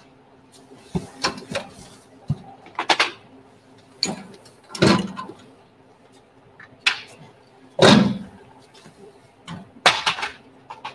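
Irregular knocks, clatters and rustles from someone handling things at a metal equipment cart, with sharp single knocks about a second in, a little after two seconds and near seven seconds.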